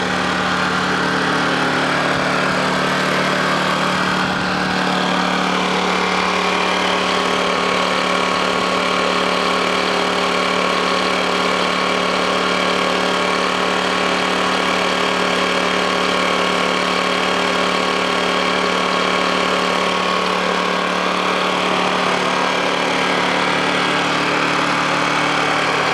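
Honda EX800 portable generator's petrol engine running steadily just after a cold start, at a speed the owner finds faster than it should be.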